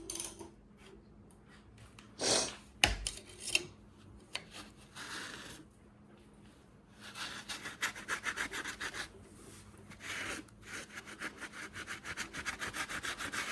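Hand sanding surface rust off a cylinder wall of a Jeep 4.0L straight-six engine block: fast back-and-forth rubbing strokes, several a second, in bursts through the second half, with a single knock about three seconds in.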